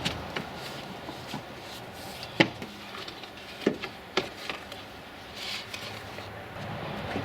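Scattered sharp plastic clicks and knocks from a pickup's air cleaner box being unclipped and opened by hand, the loudest about two and a half seconds in, with a short rustle a little past five seconds.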